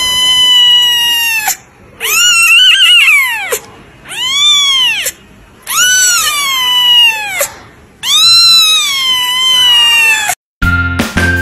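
Young kitten meowing loudly: five long, high-pitched cries with short pauses between them, each rising and then falling in pitch.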